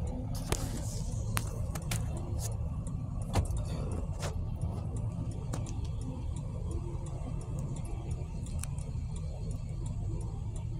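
Road traffic noise: a steady low rumble, a brief hiss about half a second in, and scattered sharp clicks, the loudest a little past three seconds.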